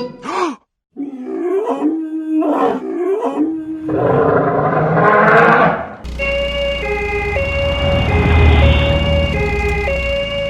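Sound effects: a creature's roars, rising and falling in pitch, for the first six seconds, then a two-tone ambulance siren alternating between two notes about twice a second over a low engine rumble.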